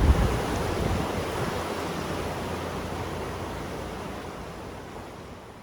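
River current flowing, a steady rush of water that fades out gradually.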